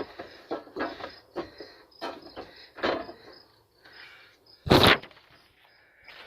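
Plastic cold air intake parts being handled and fitted together by hand: a run of short clatters and knocks, with one loud thump about five seconds in.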